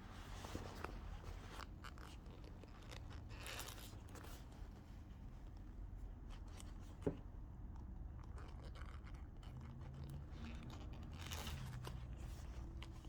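Faint rustling and scraping of hands working a zip and leather fabric, with one sharper click about seven seconds in, over a low steady room hum.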